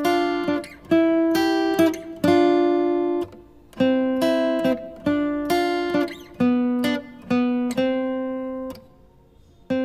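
Background music: an acoustic guitar picking a melody of single plucked notes that ring and fade, with short gaps a third of the way in and near the end.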